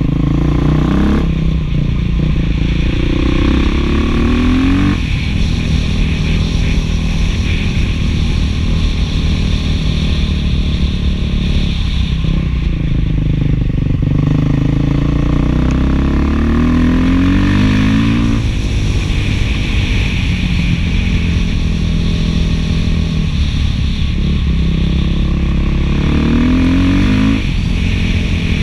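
Beta 500 dual-sport's single-cylinder four-stroke engine running through an FMF 4.1 muffler under way. Its revs climb three times, about a second in, past the middle and near the end, each time dropping off sharply at the top, as when the rider shifts up.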